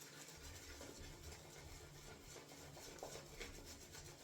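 Faint swishing and crackling of a 26 mm shaving brush working dense shaving-soap lather, a steady run of small soft ticks.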